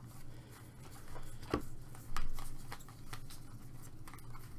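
A stack of chrome baseball cards being flipped through by hand, the stiff cards sliding against each other in soft scattered clicks and rustles, over a low steady hum.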